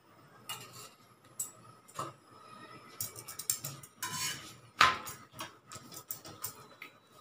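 Metal spatula clinking and scraping against an iron tawa as a roti is turned over: scattered clicks, a quick run of them in the middle, and one sharp clank, the loudest, nearly five seconds in.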